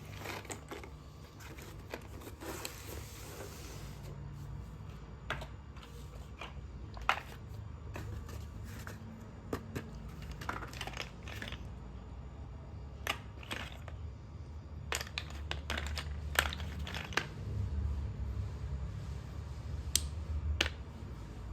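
Slate pencils crunching and snapping close to the microphone: sharp, irregular cracks, a few seconds apart at first and coming more often in the second half.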